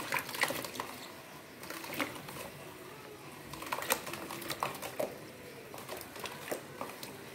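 Water splashing and sloshing in a plastic tub as an iguana paddles and thrashes in it. It comes as irregular small splashes and light knocks, a few each second.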